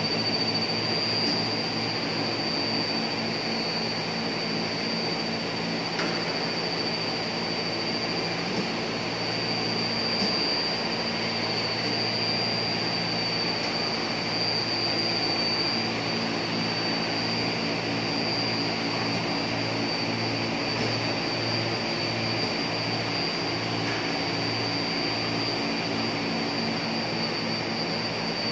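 Plastic extrusion line running: a steady machine drone with a constant high whine over a low hum that throbs during the second half.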